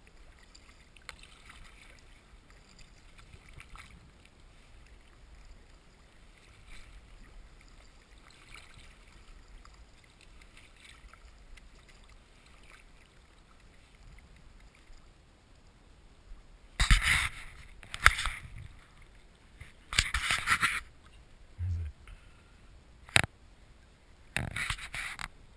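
Kayak paddle dipping into lake water in soft, regular swishes about every two seconds. In the last third come several louder splashes and knocks close by, one of them a sharp knock of the paddle.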